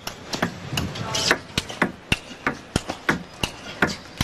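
Table tennis ball being hit back and forth in a fast rally. It makes sharp clicks off the bats and the table, about three or four a second.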